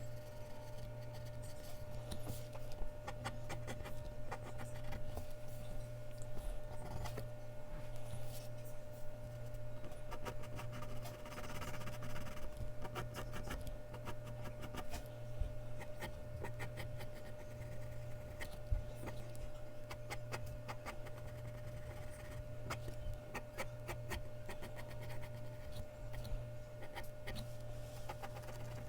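Mechanical pencil lead scratching and tapping on Bristol paper in many short strokes, with a denser stretch of continuous rubbing about eleven seconds in. A steady low electrical hum runs underneath.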